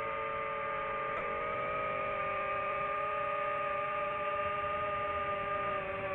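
A steady hum of several held tones, which all dip briefly in pitch together about a second in and then settle.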